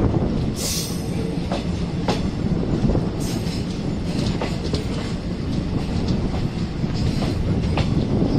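Moving train heard from the coach doorway: wheels clattering over the rails over a steady rumble and rush of air, with scattered clicks. Two brief high hisses come through, about a second in and again after three seconds.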